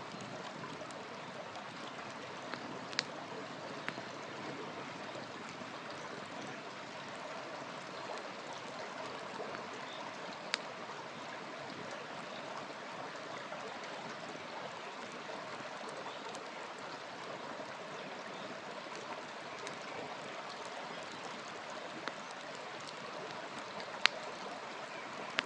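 Campfire burning with a steady hiss, and a few sharp single pops of the burning wood, the loudest near the end.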